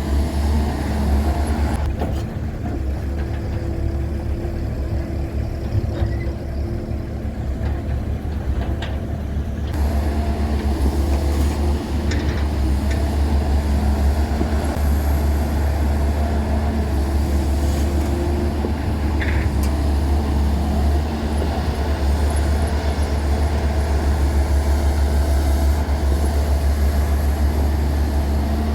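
Heavy diesel engine of earthmoving machinery running steadily under work, a loud low drone that continues throughout; it is somewhat duller for a few seconds early on before brightening again.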